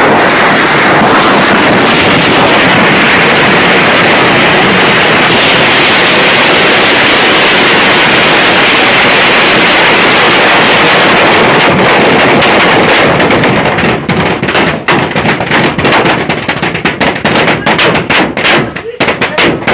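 A long string of firecrackers going off in a very loud, unbroken rattle. In the last several seconds it breaks up into separate, thinning cracks.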